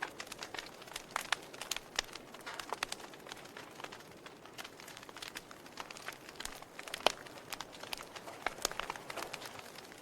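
Wood fire crackling in a fireplace: irregular pops and snaps over a soft steady hiss, with one louder pop about seven seconds in.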